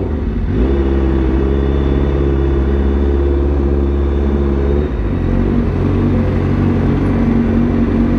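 Honda CBR1000RR-R SP's inline-four engine running at low revs as the bike rolls slowly to a stop, its tone steady, then settling to a different steady note about five seconds in.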